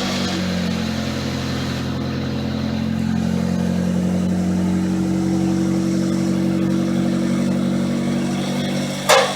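Honda D16 four-cylinder engine of a 2000 Civic EX idling steadily just after being started, its exhaust joint still loose and unsealed. A brief sharp noise near the end.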